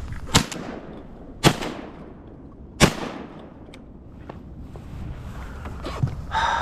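Three shotgun shots, a little over a second apart, each trailing off in a brief echo.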